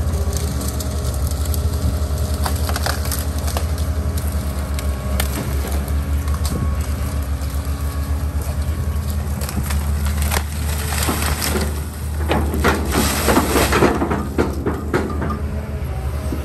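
A heavy hydraulic demolition machine's engine runs steadily as it crushes and breaks up debris. Cracking and crunching go on throughout, and from about ten seconds in there is a louder, denser burst of crunching.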